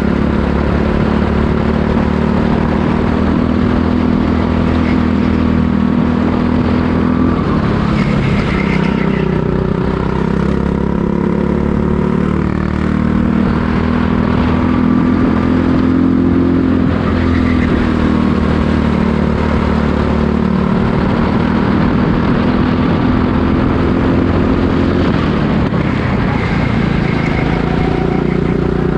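Go-kart engine running hard during a race, its revs rising and falling several times as it accelerates and slows.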